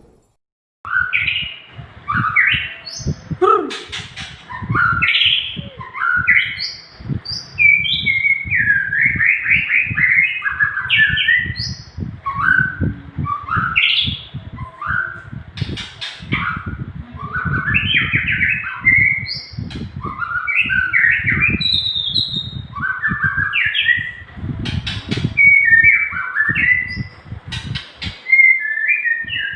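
Nias hill myna singing continuously: a long, loud run of clear whistled notes, each sweeping up or down, strung into varied phrases with barely a pause.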